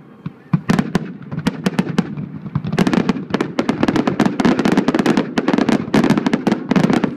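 Fireworks going off: a string of sharp cracks and bangs, spaced out at first and turning into a dense, rapid barrage about three seconds in.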